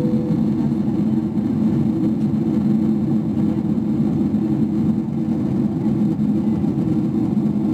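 Steady low drone inside the cabin of a Boeing 777-300ER in flight: its GE90-115B engines and the airflow over the fuselage, heard from a window seat over the wing.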